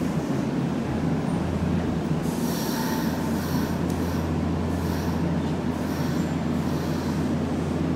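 Semboku Rapid Railway electric commuter train at the platform, giving a steady low hum. From about two seconds in, a high squeal pulses about once a second.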